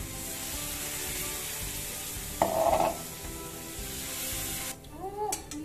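Potatoes, turmeric and ginger-garlic paste sizzling in hot oil in a pan as they are stirred, with one short loud scrape about halfway through. The sizzle stops suddenly near the end.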